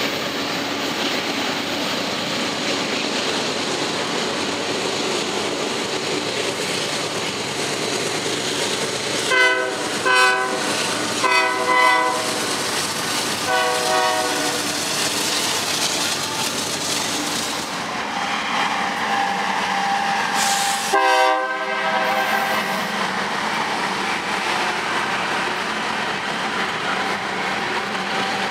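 Union Pacific freight train rolling past with a steady rumble of wheels on rail. A diesel locomotive's air horn sounds a cluster of four blasts about ten seconds in, and one more blast about eight seconds later.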